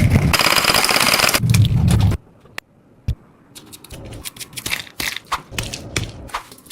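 Squishy toy being squeezed and crunched close up: a dense crackling crunch for about two seconds that stops suddenly, then a few single clicks and scattered soft crackles.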